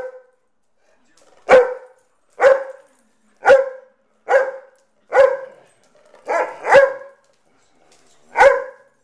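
Dog barking in rough play: about eight sharp barks, roughly one a second, with two coming close together a little past the middle.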